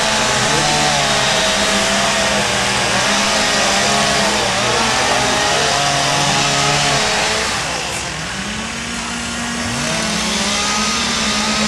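Several two-stroke chainsaws running at once, their engines revving up and down and overlapping. The din eases briefly about eight seconds in, then a saw revs up again.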